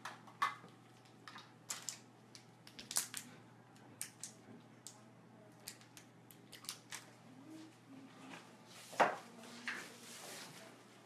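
Small clicks and clinks of a syringe, vials and instruments being handled on a steel instrument tray while a sclerotherapy injection is made ready, irregular and scattered, with one louder knock about nine seconds in.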